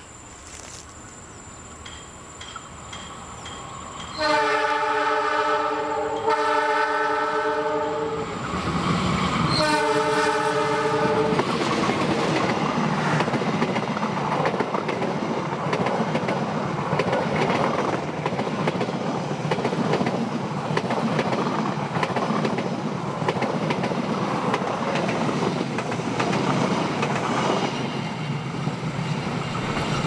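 Passenger train's multi-tone horn sounding three blasts on approach: two back to back, then a third after a short gap. The train then passes close by, wheels clattering over the rail joints in a steady loud rumble.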